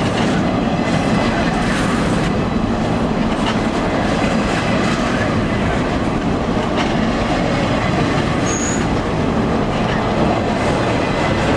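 Double-stack intermodal well cars of a freight train rolling past at close range: a steady rumble of steel wheels on the rails with scattered clicks, and a brief high squeal about eight and a half seconds in.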